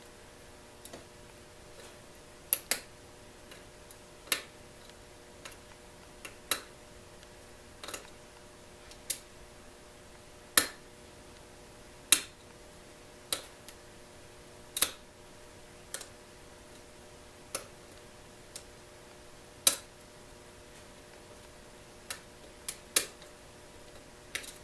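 Sharp, irregular clicks of a lock pick and tension wrench working the pin stack of a mortise lock cylinder, about one every one to two seconds.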